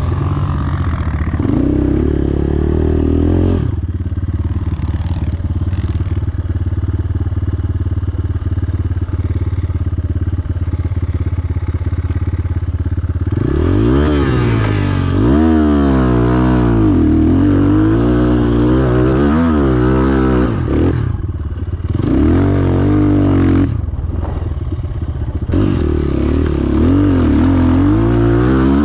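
Enduro dirt bike engine on the move, running steadily at first, then revving up and down over and over from about halfway, with a brief dip near three quarters.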